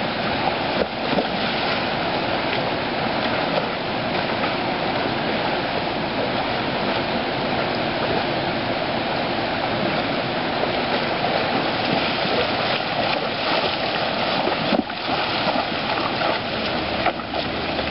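Shallow creek water running steadily over rocks. Near the end, a horse's hooves splash through the water.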